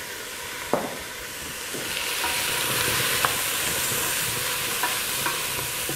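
Pumpkin, onion and curry powder sizzling in hot olive oil in a stainless steel pot, stirred with a cooking spoon. The sizzle grows a little louder about two seconds in. A few light knocks of the spoon against the pot come through it.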